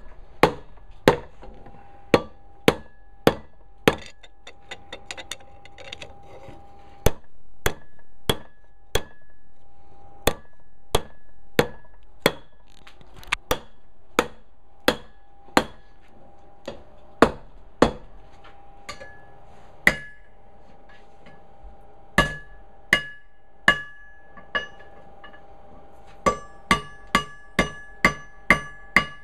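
Blacksmith's hammer striking hot steel on an anvil to draw it out, a steady run of blows about one to two a second, each leaving a metallic ring. There are a few short pauses, and a quicker run of brighter-ringing blows near the end.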